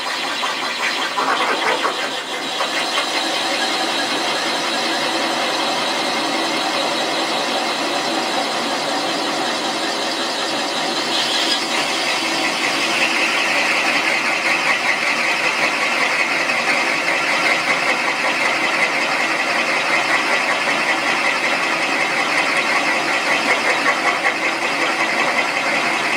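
Machine spindle driving a combination valve-guide cutter down over a new valve guide in an iron Pontiac 455 cylinder head. The cutter trims the top of the guide and cuts its outside diameter to 0.500 in to take a Viton seal, with a steady grinding cut. About halfway through, the cut grows a little louder and takes on a higher edge.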